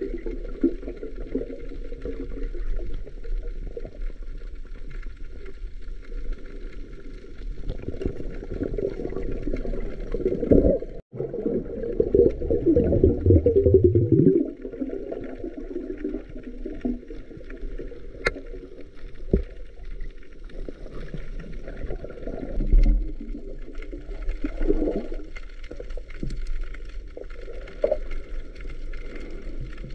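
Muffled underwater noise picked up by a submerged camera: low water rumble and gurgling from movement in the water. It swells for a few seconds around the middle, just after a brief dropout.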